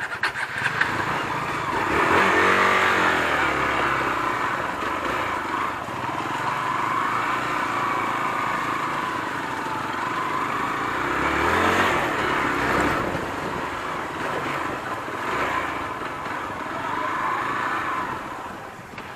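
Hero XPulse 200's single-cylinder engine pulling through mud, revving up and down with the throttle, with its strongest surges about two seconds in and again near twelve seconds.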